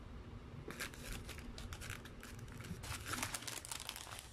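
Paper burger wrapper crinkling as it is unfolded and pulled back from the burger, a dense run of crackles starting under a second in.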